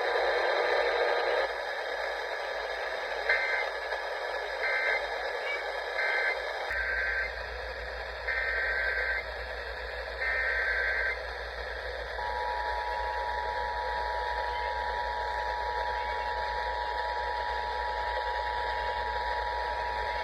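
Emergency Alert System broadcast received over the radio: a series of short digital data bursts (the SAME header), then, from about twelve seconds in, the EAS two-tone attention signal, a steady dual tone held for about eight seconds over radio hiss.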